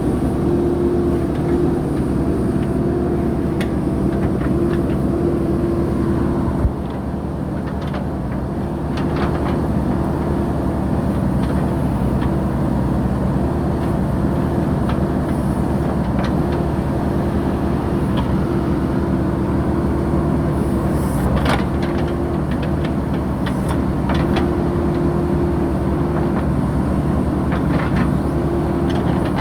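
JCB 3DX backhoe loader's diesel engine running steadily under working load, with a tone that comes and goes. A sharp knock about seven seconds in, after which the engine runs lighter for a couple of seconds before picking up again; scattered short clanks throughout.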